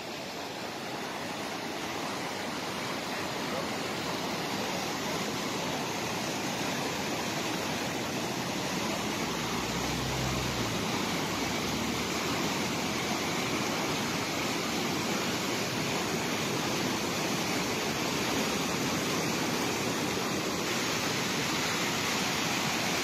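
Bregalnica river in flood after heavy rain, its swollen, fast-moving water rushing and churning in a steady, dense roar of noise that grows slightly louder.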